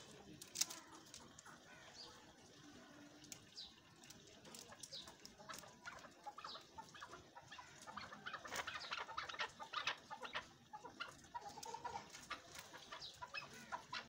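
Chukar partridges calling softly with a run of short clucks and chirps, growing busier about halfway through. There is one sharp click less than a second in.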